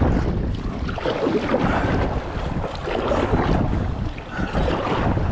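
Wind buffeting the microphone, with sea water sloshing against a kayak.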